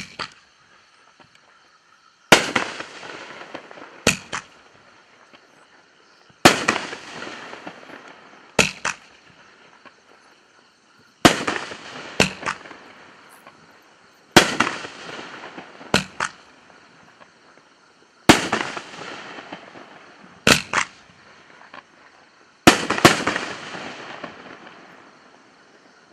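Seven-tube consumer fireworks cake (Red Apple Se7en) firing its shells one after another: a sharp pop at the start, then loud bangs every two to four seconds, each fading away over a second or so.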